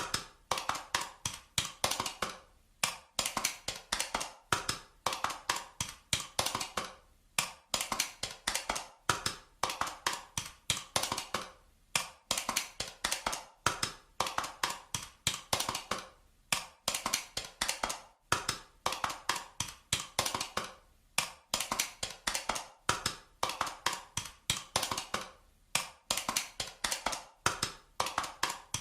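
Calculator keys being pressed in quick runs of clicking taps. Each run lasts about a second, with short pauses between runs.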